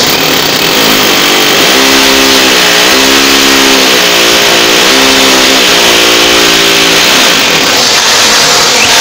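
Hammer drill with a 6 mm masonry bit boring into a brick wall through plaster, a loud continuous grinding rattle. The motor's hum dips in pitch briefly three or four times as the bit bites and is eased off, then the drill stops about seven seconds in.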